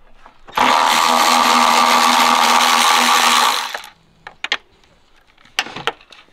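Milwaukee cordless ratchet running steadily for about three seconds as it spins out a 10 mm bolt through a long socket extension. A few light clicks follow.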